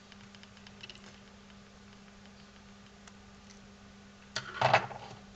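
Faint ticks of a screwdriver turning a small screw that holds a metal cable clamp in a plastic headphone ear cup, then a brief louder clatter of handling near the end.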